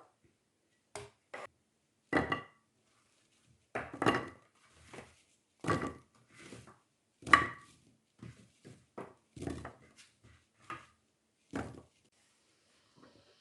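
A kitchen knife chopping on a wooden cutting board in uneven strokes, about fifteen knocks, a few of them with a short ring.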